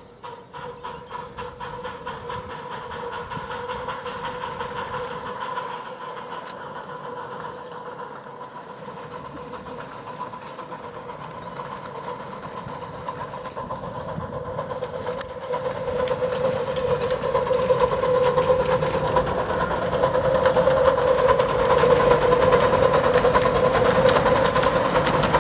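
The 7¼-inch gauge miniature steam locomotive No. 12 "Pioneer", a 4-6-2, working a passenger train. A steady, rapid beat runs over a constant tone, growing louder from about two-thirds of the way in as the locomotive comes close, and loudest near the end.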